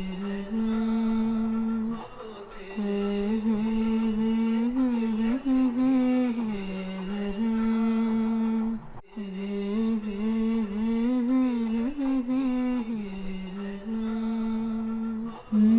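A single voice humming a slow wordless melody, with long held notes that slide and waver in pitch. There are short breaks about two seconds in and around nine seconds.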